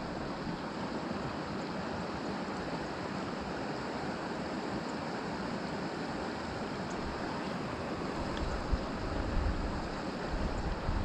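Stream water running steadily, with wind gusting against the microphone in uneven low rumbles during the last few seconds.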